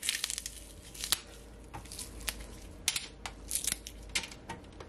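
Fresh scallion stalks being torn by hand and dropped onto a parchment-lined baking tray: an irregular run of crisp snaps, crackles and paper rustles.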